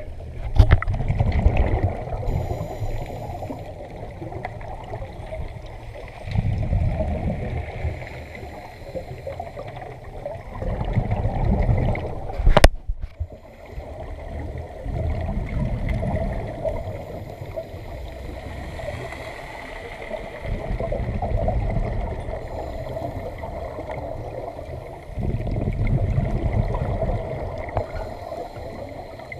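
Underwater scuba breathing: regulator exhalation bubbles gurgle and rumble past the camera in surges every four to five seconds, over a steady background hum. A single sharp knock comes about halfway through.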